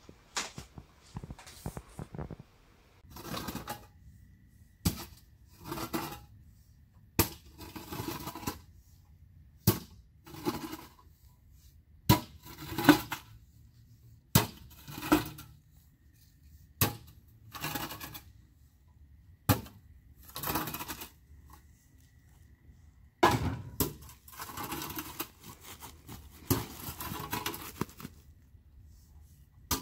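A shovel working in dirt with repeated strokes about every two and a half seconds: each a sharp hit of the blade, followed by about a second of rustling dirt.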